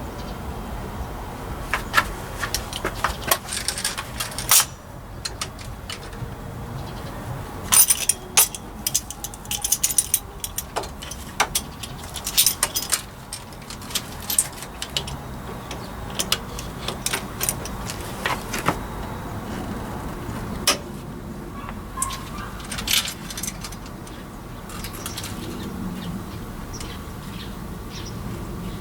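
Scattered metallic clicks and clinks of hand tools and engine parts as the exhaust cam sprocket of a Honda CB400 engine is repositioned on its timing chain. The taps come irregularly, some in quick clusters, over a low steady hum.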